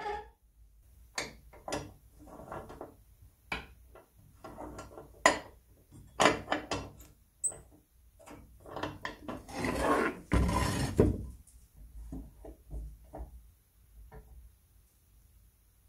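Hands handling an old cast-iron crepe (fluting) iron: a string of short metal clicks, knocks and scrapes as its levers and parts are moved, with a longer scraping rub about two thirds of the way in.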